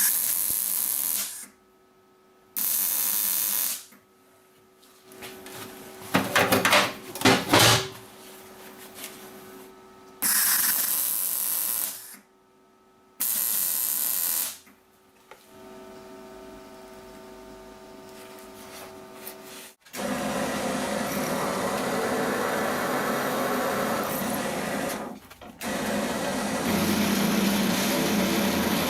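Power tools cutting or drilling metal in short bursts of about one to two seconds each, with a few sharp knocks, then running steadily from about two-thirds of the way in.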